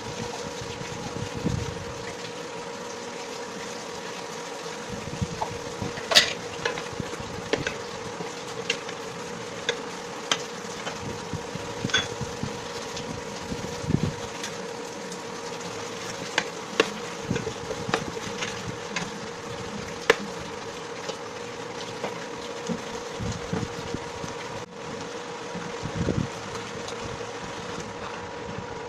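A wooden spoon stirring chicken feet in a metal pan: scattered sharp clicks and a few soft knocks, over a steady electrical hum.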